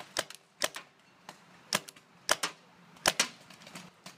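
Paintball markers firing: sharp pops, mostly in quick pairs, several times.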